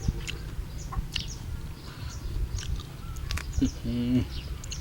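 Birds chirping repeatedly in short, high notes, with one brief pitched call about three and a half seconds in.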